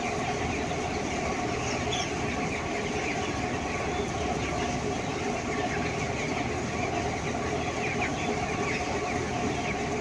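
A large flock of 18-day-old broiler chickens chirping and clucking all over the shed, many short high calls overlapping, over a steady mechanical hum.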